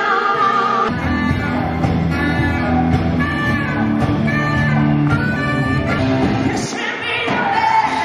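A live rock band plays loudly, with a saxophone playing phrases over the guitar, bass and drums. The bass and drums come in about a second in and drop out near the end, where a woman's singing voice returns.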